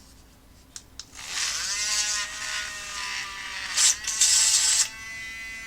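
Small Dremel-type rotary tool spinning up with a rising whine, then running steadily while a small drill bit bores a hole in plastic, with louder rasping bursts about four seconds in as the bit cuts.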